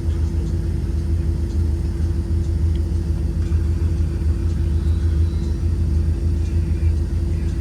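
2023 Blue Bird Vision school bus with a Ford 7.3L gasoline V8 running at steady speed, heard from inside the cabin: a constant low engine and road rumble with a steady hum, neither rising nor falling.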